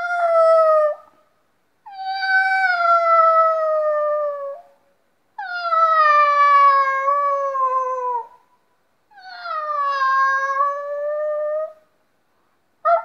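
A man imitating animal calls with his voice: four long, high-pitched calls, each falling in pitch.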